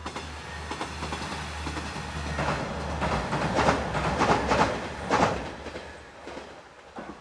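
Two-car diesel railcar of the JR Hachikō Line passing, its engine a steady low hum. From about two and a half seconds in, its wheels clack in a run of beats as it crosses a steel girder bridge, then the sound fades away near the end.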